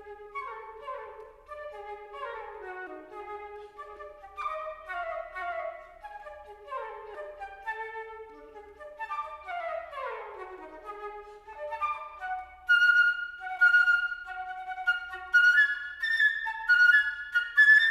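Solo flute playing quick runs of notes that tumble downward again and again, then, about two-thirds of the way through, louder, short, sharply attacked high notes.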